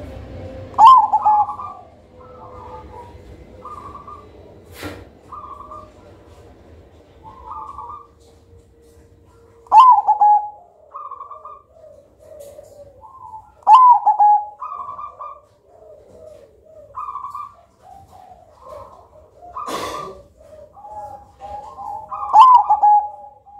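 Zebra dove (perkutut) cooing: four loud phrases, each opening with a sharp high note that falls into a warbled coo and trails off into a run of short, softer notes, with quieter notes in between. Two sharp knocks, one about five seconds in and a louder one near twenty seconds.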